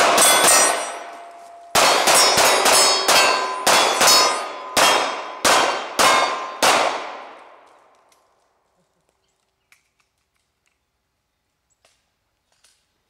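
Glock 26 9mm pistol fired in quick succession at steel targets, each shot followed by the ring of struck steel: a fast burst of three, a pause of about a second, then about eleven more shots over five seconds. The steel's ringing fades out about eight seconds in.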